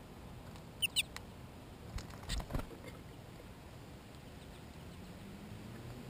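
Small songbirds at a clear plastic window feeder: a few short, high, squeaky call notes about a second in, then a quick cluster of taps and clicks around two seconds in as beaks and feet work the sunflower seeds and the plastic.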